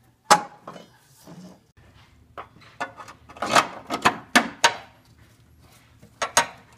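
Light metal clinks and knocks from the caster/camber plate's steel studs against the strut tower as they are test-fitted through freshly drilled holes: one sharp click, a quick run of clinks in the middle, and two more near the end.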